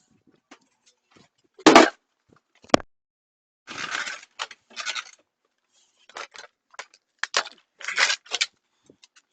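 A scattered series of short clicks, knocks and scrapes, like hard objects or tools being handled, with the loudest knocks about two seconds in and near the end.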